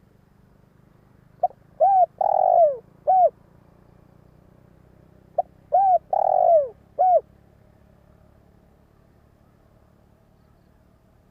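Spotted dove cooing: a decoy male's song, two phrases about four seconds apart. Each phrase is a short note followed by three cooing notes, the third the longest and falling in pitch, over a faint low hum.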